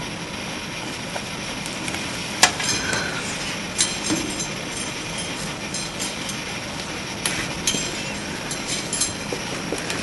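Steady background hiss with a few faint clicks and taps scattered through it.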